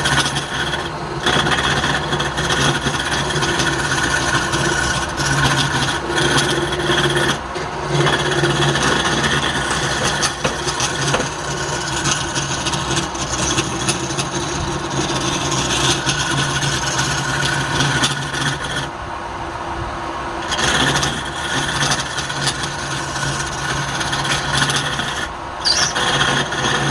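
Woodturning lathe running with a steady motor hum while the spinning workpiece is scraped, a continuous rasping. The rasping eases off briefly a few times, longest about two-thirds of the way through.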